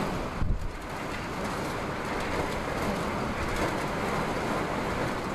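Hurricane wind blowing steadily, with a hard gust buffeting the microphone about half a second in.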